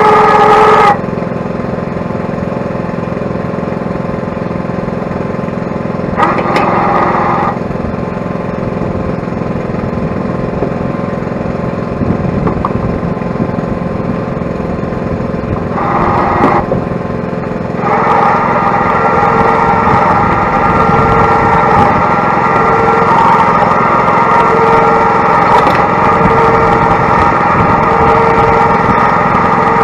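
Mini excavator's engine running steadily, with a high hydraulic whine that cuts in briefly twice and then holds steady from a little past halfway, as the machine is worked onto the trailer.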